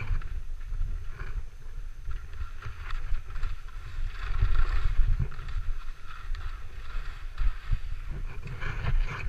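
Skis sliding and scraping over snow, with a steady rumble of wind on the microphone.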